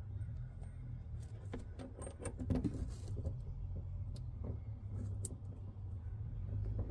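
Scattered faint clicks and small metallic taps of a threaded plumbing fitting being handled and turned by hand, over a steady low rumble.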